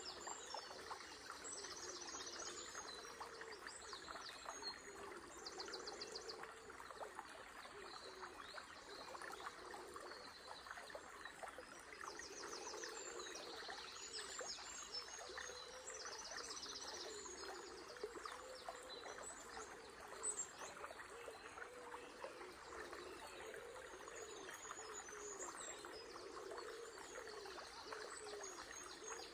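River water babbling steadily, with several small birds singing high, quick trilled phrases over it again and again.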